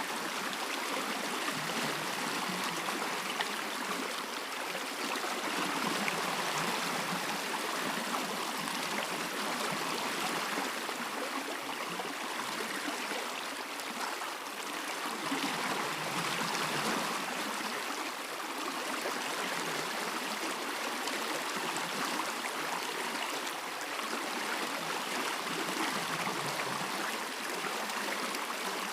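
A stream running steadily, an even rush of flowing water with no breaks.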